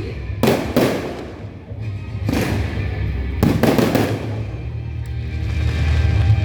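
Fireworks going off in a string of loud bangs, about five in all, some a fraction of a second apart and others over a second apart, each trailing off briefly. Music plays steadily underneath.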